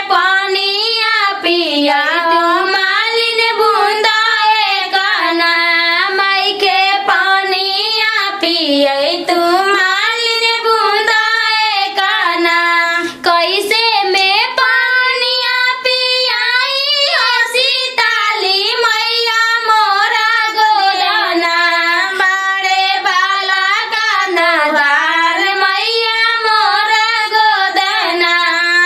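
A high-pitched voice singing a continuous, ornamented melody over a steady held low tone, with no drums.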